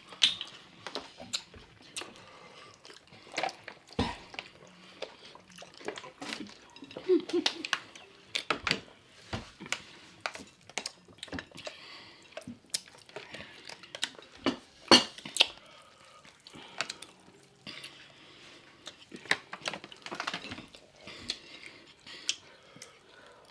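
Close-miked eating sounds: wet chewing and mouth smacking with scattered sharp clicks and clinks, irregular throughout, the loudest click about fifteen seconds in.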